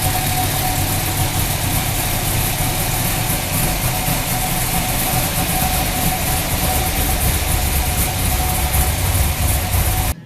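Engine idling steadily: a low rumble with a thin steady whine over it, cut off abruptly near the end.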